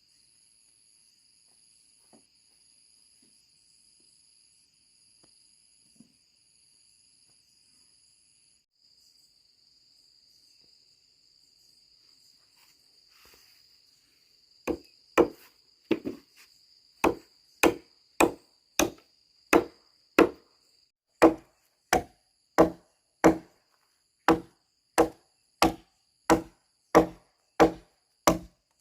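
Repeated, evenly spaced blows of a hand tool striking wood, about three every two seconds, beginning about halfway through. Before them, insects chirr faintly and steadily.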